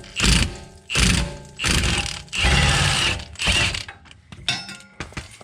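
Impact wrench with a 16mm socket on a wobble extension hammering in about six short bursts, loosening a stuck rear brake caliper bolt. A few light clicks follow near the end.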